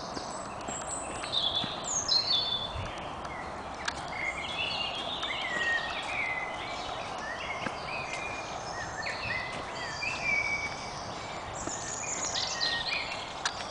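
Several wild songbirds singing at once: many short, overlapping whistled and trilling phrases, over a steady hiss of background noise.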